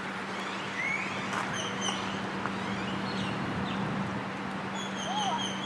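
Steady rushing outdoor background noise, with a small bird chirping: a few high chirps about a second and a half in, then a quick, even run of repeated chirps near the end.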